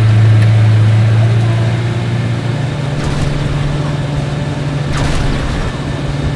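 Jon boat's outboard motor running under way, a steady engine drone whose pitch steps up a little about two and a half seconds in.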